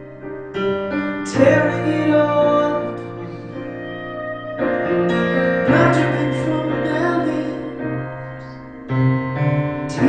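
Slow live ballad on a stage piano: sustained chords struck and held, changing every second or few, with electric guitar alongside.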